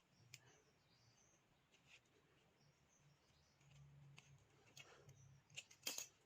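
Near silence: faint room tone with a few soft scattered clicks, the loudest cluster near the end, and faint short high chirps.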